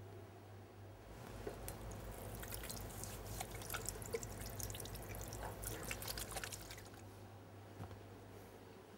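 Kitchen tap running into a stainless steel sink as hands are washed, with water splashing and dripping. It starts about a second in and stops about two seconds before the end.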